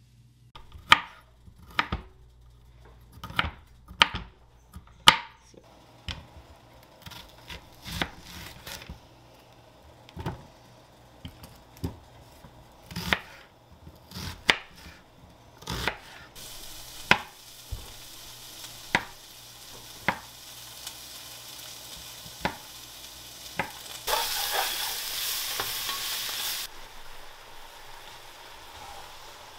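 Chef's knife chopping broccoli and onion on a wooden cutting board, sharp separate chops at an uneven pace. About halfway through, chicken and vegetables start sizzling in a frying pan while a wooden spatula stirs them, the sizzle louder for a couple of seconds near the end.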